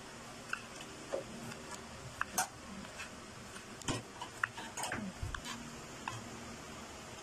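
Kitchen knife cutting tomatoes into wedges on a wooden cutting board: light, irregularly spaced knocks and clicks as the blade meets the board.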